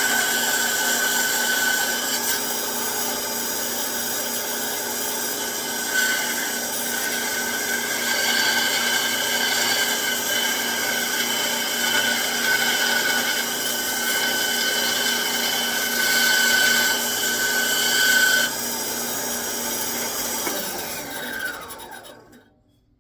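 Bench band saw running and cutting through a thin wooden piece, with a steady motor hum and blade whine that gets louder during the cuts. About 18 seconds in the cutting stops. The saw is then switched off and winds down with a falling pitch, going quiet just before the end.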